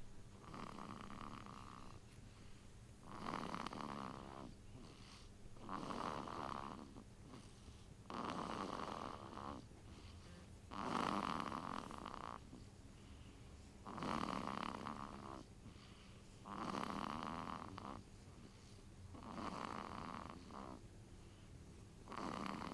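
A sleeping baby snoring in a steady rhythm: about nine snores, one every two and a half seconds or so, each lasting a second or a little more.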